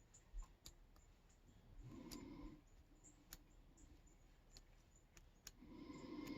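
Faint, scattered metallic clicks of a lock pick working the pins inside a Yale K300 padlock during single-pin picking, about half a dozen light ticks spread irregularly.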